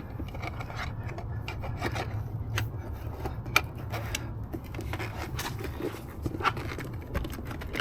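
Tire spoons levering the rubber bead of a mobility scooter tire over the wheel rim: rubbing and scraping with scattered sharp clicks.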